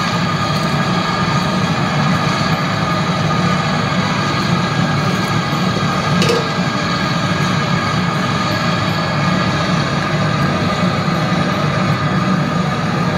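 Steady mechanical drone, a constant hum with fixed tones over a hiss, with a single short tap about six seconds in.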